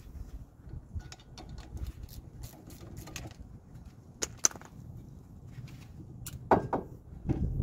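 Scattered light clicks, taps and knocks of metal brake parts handled at a truck's front brake caliper, over a steady low background rumble. The sharpest clicks come about four and a half and six seconds in.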